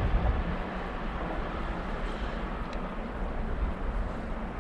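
Steady low rumble and hiss of background noise, with no distinct events.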